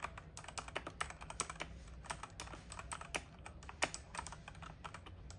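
Typing on a mechanical keyboard with Outemu Red linear switches: a fast, irregular run of fairly quiet key clicks, several a second.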